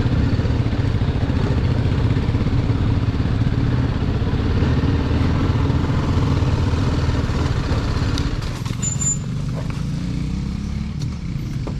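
Motorcycle engine running under load on a steep dirt climb, with its pitch rising and falling about two-thirds of the way in.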